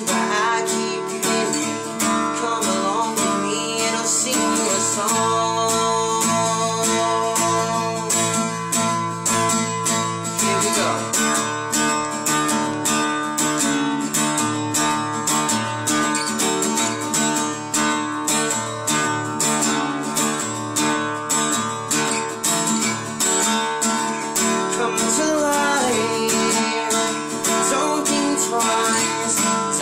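Acoustic guitar strummed in a quick, even rhythm, with the chords changing as it goes.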